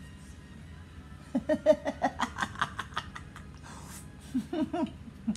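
A man laughing: a run of quick, repeated bursts starting about a second in, and a shorter burst of laughter near the end.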